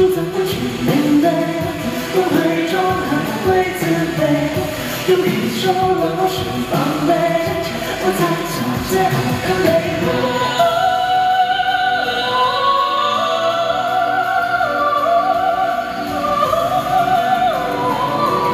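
Live pop song sung by a male vocalist over a busy backing track. About ten seconds in it gives way to a high, wordless, operatic-style vocal line with a wavering pitch, held over sustained accompaniment.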